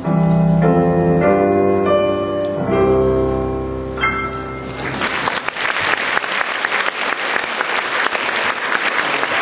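Piano playing the closing chords of a song, then an audience applauding from about five seconds in.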